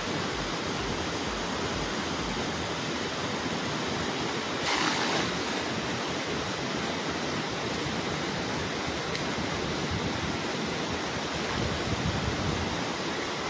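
A cast net hitting the river surface: a brief splash about five seconds in, over a steady rushing noise.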